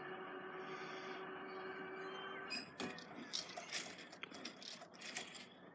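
Level crossing warning alarm sounding a steady tone that cuts off about two and a half seconds in, followed by a run of light rattling clicks.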